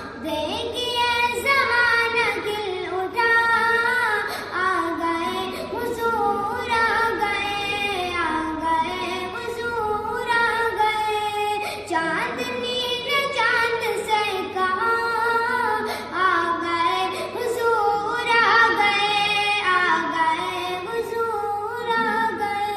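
A single high voice sings a naat, an Urdu devotional song in praise of the Prophet, in long melodic phrases over a faint steady low hum.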